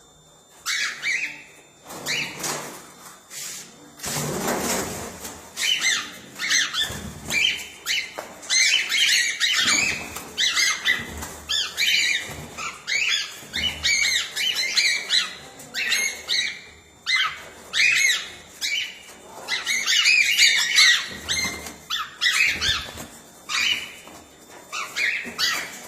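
A flock of cockatiels calling over and over, short chirps and squawks overlapping one another. About four seconds in there is a brief rushing noise.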